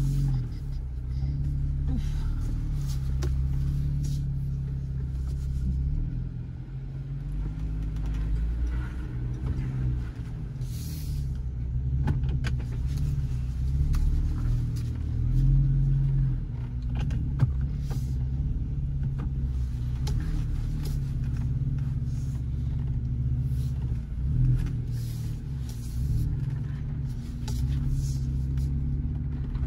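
Jeep Wrangler engine running at low, steady revs with rises and dips, with occasional sharp knocks.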